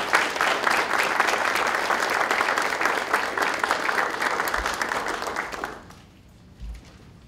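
A roomful of people applauding, the clapping dying away about six seconds in, followed by a brief soft low thump.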